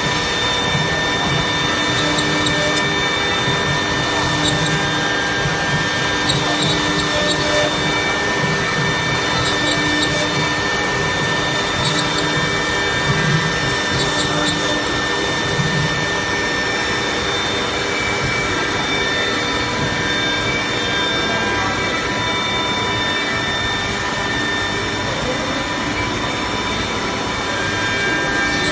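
1325 CNC router running steadily: an even mechanical whine from its spindle and motors, with scattered faint clicks.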